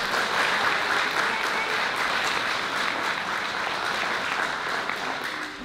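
Audience applauding steadily, dying away at the very end.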